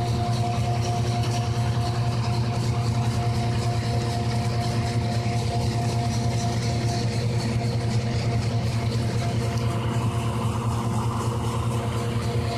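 Tractor-powered hazelnut thresher running steadily while being fed husks: a constant low engine drone with several steady whining tones above it.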